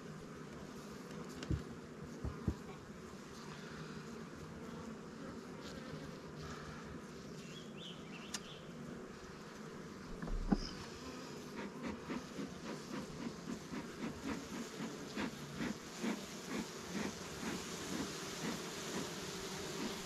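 Honey bees buzzing steadily around an open Langstroth hive, with a few sharp knocks of wooden hive parts in the first half. From about halfway through, a bee smoker's bellows puff in quick, even strokes, about two a second.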